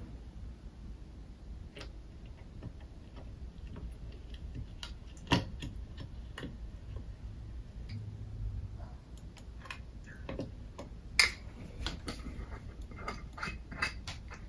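Ice cubes in a tall glass clinking and crackling as dark syrup is poured over them from a glass bottle: scattered sharp clicks, two louder clinks about five and eleven seconds in, and a quick run of small crackles near the end.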